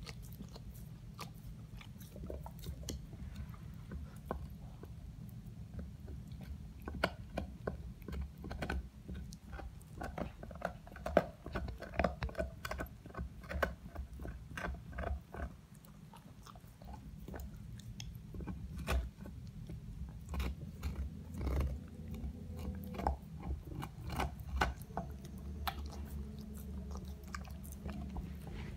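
A dog gnawing and chewing on a large bone: irregular crunching and scraping clicks at an uneven pace, loudest about eleven seconds in.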